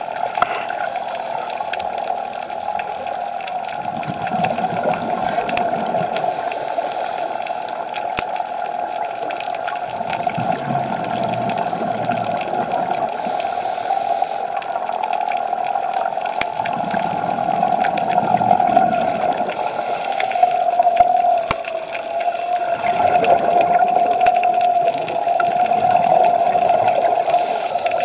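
Underwater sound of a scuba diver breathing through a regulator: bursts of exhaled bubbles gurgle up four times, about every six seconds, over a steady hum.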